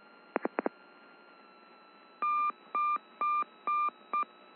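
Three quick clicks, then about two seconds in a series of five short electronic beeps at one steady pitch, about two a second, the last one shorter, heard through the aircraft's radio/intercom audio feed.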